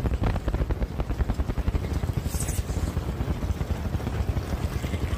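Outboard jet boat motor running at low speed, a steady fast chugging of engine pulses.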